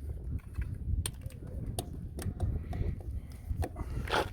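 Scattered light clicks and knocks at irregular intervals over a low rumble, the strongest near the end.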